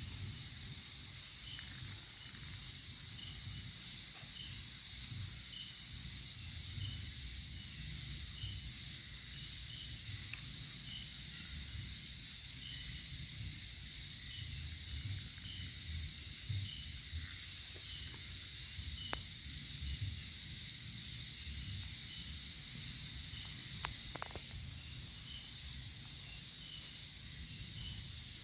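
Steady high insect drone with a soft chirp repeating about once a second, over a low rumble like wind on the microphone. There are a few faint clicks.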